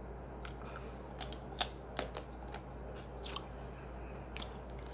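Seafood shells being cracked and peeled while eating: a handful of sharp, irregularly spaced snaps and crackles.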